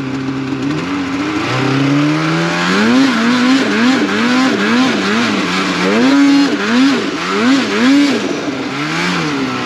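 Snowmobile engine running under throttle as the sled crosses snow pillows. It starts low and steady, climbs in pitch, then rises and falls about twice a second as the throttle is worked on and off, easing back near the end.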